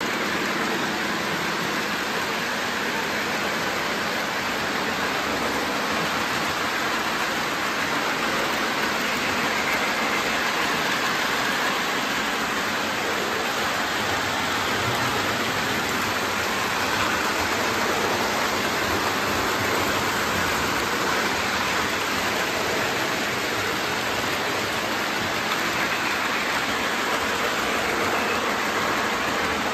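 Lionel model trains running around the layout's track: a steady, even whirring noise of metal wheels on the rails and electric motors.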